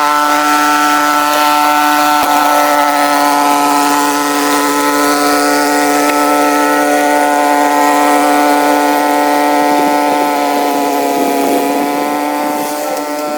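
Gas snowblower engine running steadily as it clears snow, its pitch wavering a little in the last few seconds.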